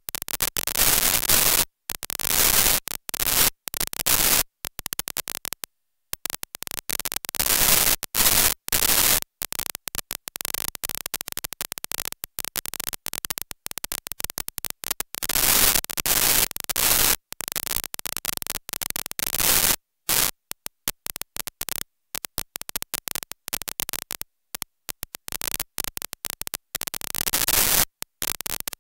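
Harsh static hiss that keeps cutting in and out, with many abrupt drops to silence: glitching, broken recording audio.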